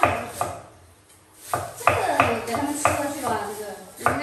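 Cleaver slicing vegetables on a wooden chopping board: quick knife strokes about three a second, with a pause of about a second near the start before the chopping resumes.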